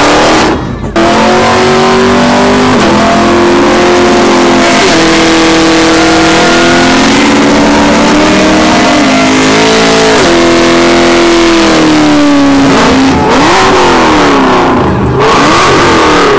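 Car engine held at high revs during a burnout, tyres spinning, its pitch stepping up and down over a hiss of noise. The sound cuts out briefly just under a second in, and near the end the revs swing quickly up and down.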